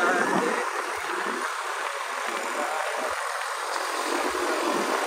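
Steady rush of wind and road noise from riding on a motorcycle, with no clear engine note standing out.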